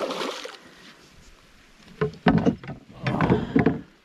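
Water splashing and knocks against the hull of a small fishing boat as a hooked fish is fought at the side. The sound comes in two loud bursts: one fades out just after the start, and the other runs from about two seconds in to nearly four.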